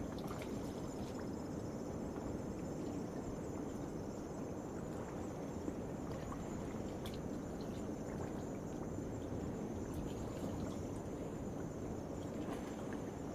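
Steady wash of waves under a nighttime insect chorus, a continuous high buzzing trill, with a few faint clicks.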